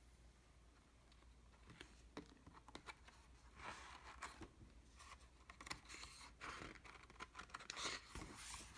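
Faint rustling and scattered light clicks of a picture book's paper pages being handled, getting busier from about two seconds in.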